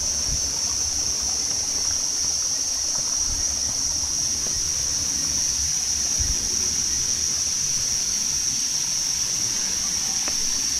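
Steady, high-pitched drone of a forest insect chorus, holding one pitch without a break, over a low rumble.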